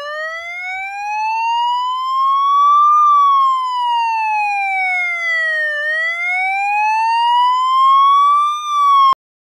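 Police motorcycle siren wailing, slowly rising and falling in pitch. It climbs for about three seconds, falls, and climbs again before cutting off suddenly near the end.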